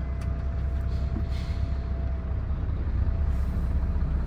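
A truck's diesel engine running steadily, heard from inside the cab as an even, deep rumble.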